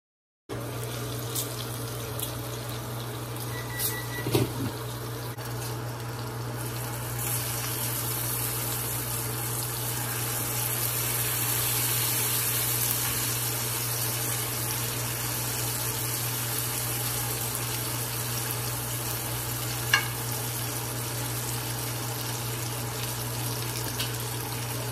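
Water running from a kitchen tap for the first several seconds, then bacon strips sizzling in a frying pan, a steady hiss, with a few sharp clicks of a fork against the pan.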